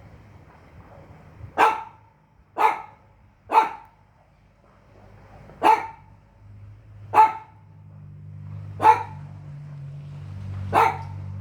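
A dog barking seven single barks, spaced irregularly, over a low steady hum that grows louder in the second half.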